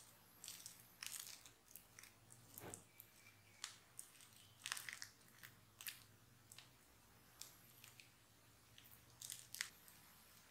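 Silicone spatula pressing and spreading oily, sticky focaccia dough across a ceramic baking dish: faint, irregular short wet clicks and smacks as the dough is worked.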